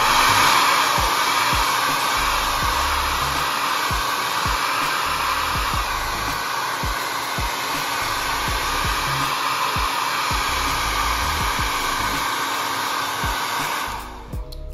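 Hand-held hair dryer with a diffuser attachment blowing steadily at full power, starting abruptly and cutting off about a second before the end, with low thumps of air buffeting underneath. It is drying the slicked-down hairline ready for the lace.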